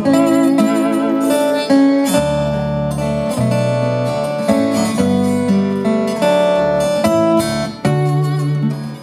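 Acoustic lap steel guitar played solo: plucked notes over ringing low notes, the slid notes bending and wavering in pitch.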